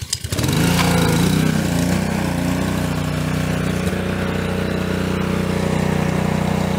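Honda GCV170 single-cylinder four-stroke engine on a Ryobi gas pressure washer, pull-started with no choke: it catches right away and settles into a steady run within about a second.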